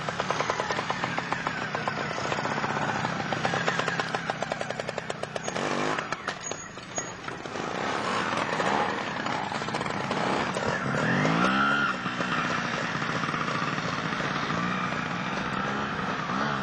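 Trials motorcycle engine running at low revs with a rapid, even popping. The revs rise and fall as the throttle is worked over rough ground.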